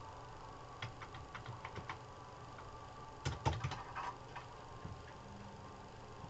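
Land snail feeding on a cabbage leaf, its rasping mouthparts making faint crisp clicks: a run of small clicks about a second in, then a louder cluster of clicks in the middle, and a few more after.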